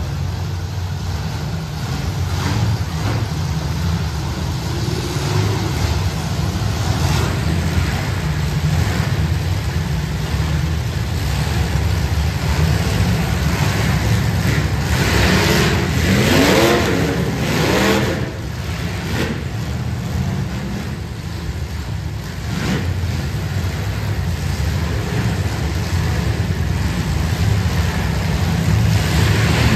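Engines of a pack of bone stock demolition derby cars running and revving together, with rising revs about halfway through.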